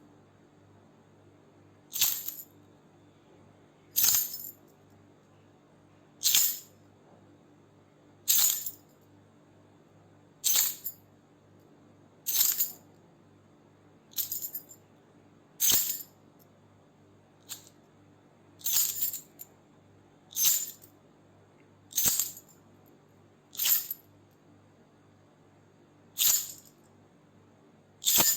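A bunch of metal keys shaken in short jingles, one brief jingle about every two seconds, each bright and rattling and dying away quickly.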